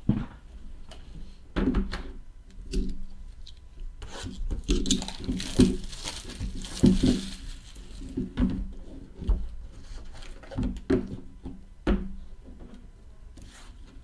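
Trading-card boxes handled on a tabletop: a string of knocks and bumps as the boxes are lifted, set down and moved, with a stretch of rubbing and sliding in the middle.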